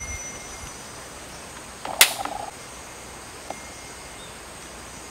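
Small metal bell on a hanging dreamcatcher ringing and fading out, followed by a single sharp tap about two seconds in.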